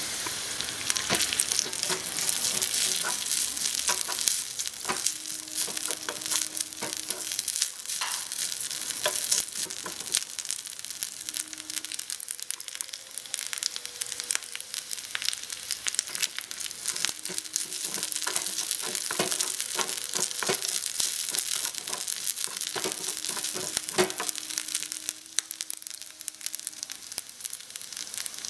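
Minced pork and garlic sizzling in a miniature metal wok, a steady hiss broken by frequent small clicks and scrapes of utensils against the pan.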